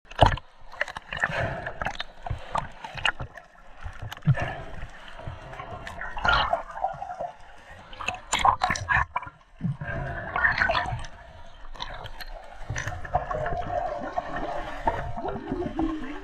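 Sea water sloshing and gurgling around an action camera at the waterline and just under the surface, with irregular splashes and bubbling.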